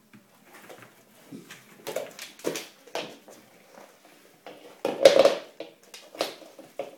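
Irregular taps, knocks and scuffles of a Doberman and a small Prague ratter moving about and jumping down to the floor. A louder, longer scuffle comes about five seconds in.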